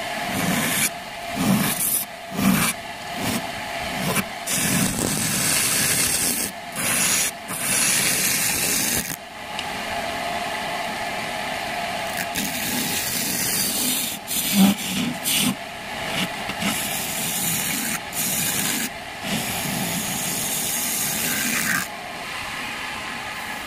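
Wood lathe turning a coffee-wood blank while a tool scrapes against the spinning wood in repeated passes, the harsh scraping starting and stopping every second or so, then running more steadily for a while in the middle.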